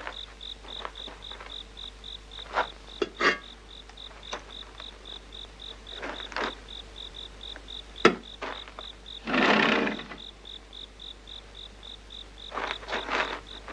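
Crickets chirping in an even high pulse, about four chirps a second. Scattered sharp knocks and clicks sound over it, and a short louder rasping noise comes about nine and a half seconds in.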